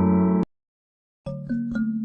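Background music: a held keyboard chord cuts off abruptly about half a second in, and after a short silence three quick struck, chime-like notes ring out in succession.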